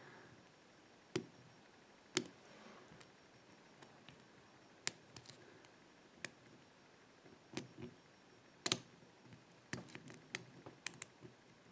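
Lock pick and tension tool working the pin stack of a Chubb padlock while spool pins are being set: sparse, sharp little metallic clicks and ticks at irregular intervals, coming closer together near the end.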